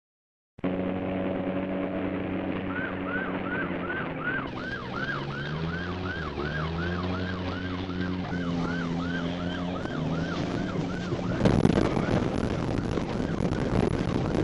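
Police car siren in a fast yelp, about three sweeps a second, over a car engine revving up and down. About eleven seconds in, a loud rough rushing and rumbling noise takes over as the car runs across rough ground.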